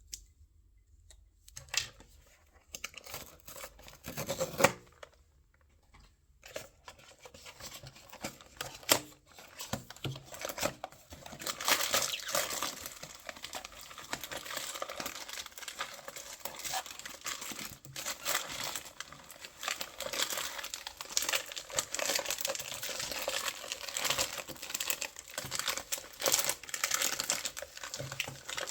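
Blind-box packaging being unwrapped: a few scattered taps and rustles, then steady, dense crinkling and tearing for the rest of the time.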